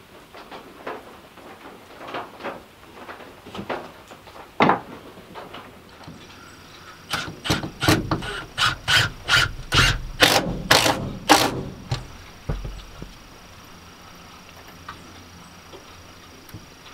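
Hammer blows on wood: scattered lighter knocks at first, then about ten hard strikes in quick succession, roughly two a second, around the middle, as a wooden paper towel holder is fixed to an OSB wall.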